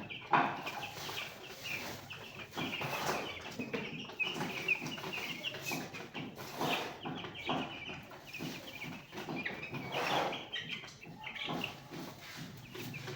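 A flock of chickens in a poultry house clucking and calling, many short high calls overlapping without pause.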